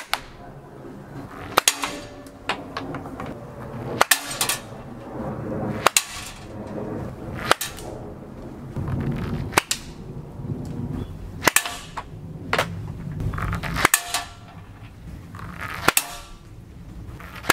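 A Pocketshot slingshot fitted with a hammer-grip handle, shooting 10 mm stainless steel balls at a steel target. There are sharp cracks of shots about every two seconds, each with a short ring after it, and quiet handling rustle between them.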